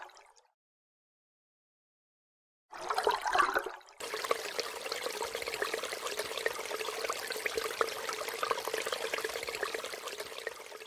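Liquid pouring into a tank: a short gurgling splash about three seconds in, then a steady pour with many small bubbling pops from about four seconds on, standing for coolant filling the expansion tank.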